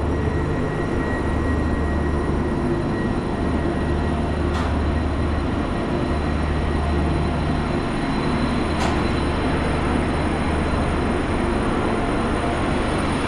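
Loud steady machinery drone: a low hum that dips briefly a few times, with faint steady high whines over it. Two short clicks sound about four seconds apart.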